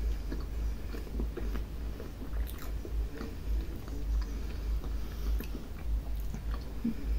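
Two people chewing mouthfuls of soft chocolate-glazed donut filled with pastry cream, with scattered small wet mouth clicks over a low pulsing rumble.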